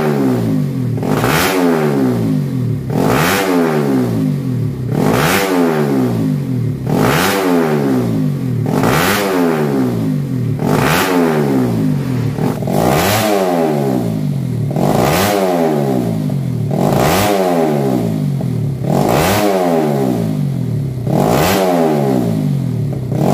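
Bored-up four-stroke single-cylinder race motorcycle engine revved in repeated throttle blips, about one every two seconds. Each blip rises fast in pitch and drops back toward idle. The engine has just been reassembled with a racing camshaft and started for testing.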